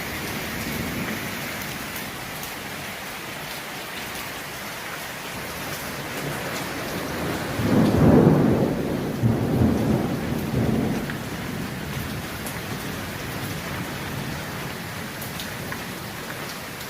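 Heavy rain falling steadily, with a roll of thunder about halfway through that swells in several peaks over a few seconds and then dies back under the rain.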